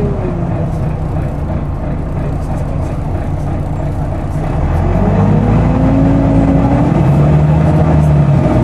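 Volvo B9TL double-decker bus running, with the loud whine of its cooling fan over the engine, a sound enthusiasts liken to a hoover. The whine dips early, then rises in pitch and the whole sound grows louder from about four and a half seconds in as the bus picks up speed.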